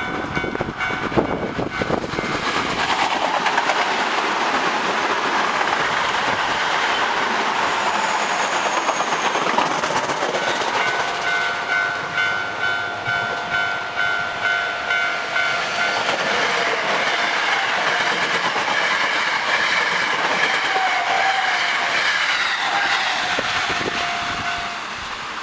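Eight-car electric commuter trains, an Osaka Metro 66 series and a Hankyu 7300/8300 series, passing through a level crossing at speed. The wheels clatter over the rail joints in a steady rhythm, and the level crossing warning bell rings throughout.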